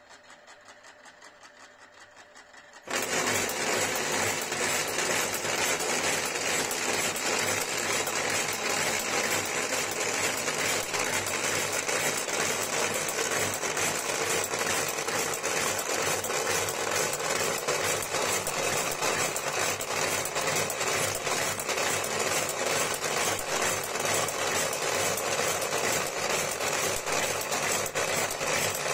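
Trezo 1000 Turbo electric cigarette-tube filling machine starting up about three seconds in, then running steadily with a fast, even mechanical rhythm as its piston tamps tobacco into tube after tube, about two cigarettes a second.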